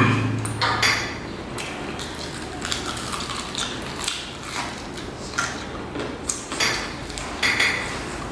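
Scattered light clicks and clatters of food containers and dishes being handled while eating.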